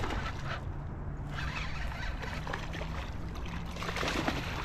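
A hooked bass thrashing and splashing at the water's surface near the bank as it is reeled in, in two bursts: about a second and a half in and again near the end.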